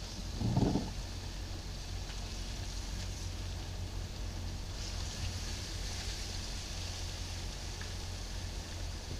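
Car driving on a wet road: a steady low rumble of engine and road noise with tyre hiss. About half a second in there is one short, louder rumble.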